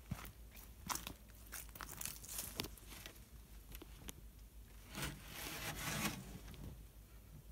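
Footsteps with clothing and handling rustle: a string of soft scuffs and clicks, then a longer, louder rustling scrape about five seconds in.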